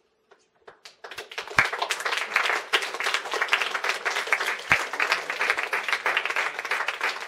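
Audience applauding, many hands clapping, starting about a second in and holding steady throughout.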